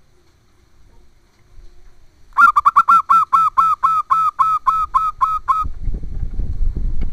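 Zebra dove (perkutut) cooing: a rapid run of about fourteen short, clipped notes lasting about three seconds, slowing slightly towards the end. A low rumbling noise follows near the end.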